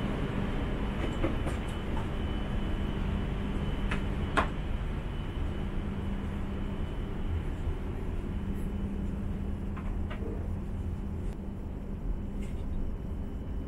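Steady interior hum of an H5-series Shinkansen car standing at the platform, with a low steady tone that drops away about seven seconds in. A single sharp click comes about four seconds in.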